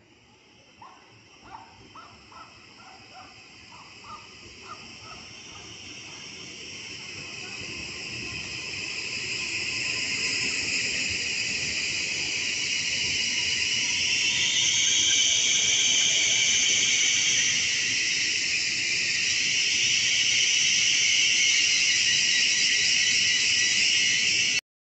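Caravaggio double-deck electric train drawing alongside the platform, growing steadily louder as it approaches, with a loud high-pitched squeal that wavers up and down in pitch as the carriages pass. The sound cuts off abruptly just before the end.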